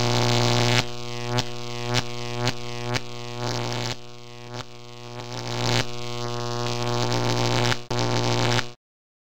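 Electronic intro sound: a steady low buzzing drone with sharp zapping accents about twice a second. It swells near the end, then cuts off suddenly.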